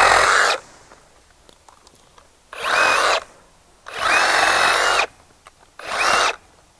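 Ryobi One+ HP cordless reciprocating saw cutting through tree branches in short runs. One run ends just after the start, then the saw runs three more times, about half a second to a second each, stopping between cuts.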